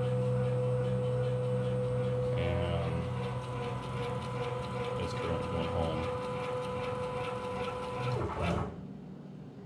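Stepper motor driving an axis of a CNC-retrofitted Bridgeport mill at a steady speed during its homing cycle, a steady whine that stops sharply about eight seconds in.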